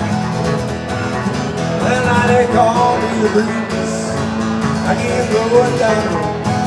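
Two guitars playing country music live: a cutaway acoustic guitar strumming a steady rhythm with a hollow-body guitar, and a line of bent, gliding notes over it.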